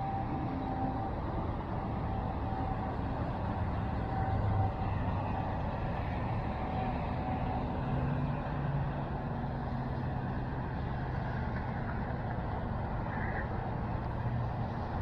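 Steady rumble of motor traffic, with a low engine drone that rises and falls.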